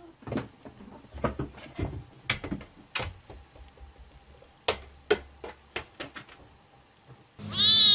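Irregular light taps and knocks of a cat pawing at a small toy basketball and a miniature hoop on a scratching post. Near the end a loud, high cat meow cuts in.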